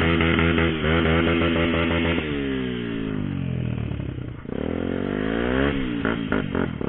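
Motorcycle engine running at steady revs, then slowing as the revs fall over about two seconds and revving back up. A few sharp knocks or pops come near the end.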